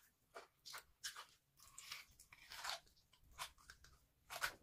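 A person chewing food close to the microphone: wet, irregular chewing and mouth sounds, about two a second, the loudest near the end.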